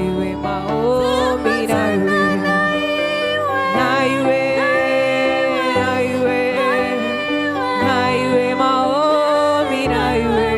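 Gospel worship song: a singing voice holds long melodic notes over steady instrumental accompaniment.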